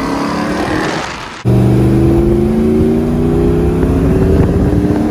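Ram TRX's supercharged Hellcat V8 accelerating while towing a trailer, its pitch rising, then an abrupt cut about a second and a half in to a louder Ram 1500 5.7-litre Hemi V8 pulling the loaded trailer, its pitch climbing slowly.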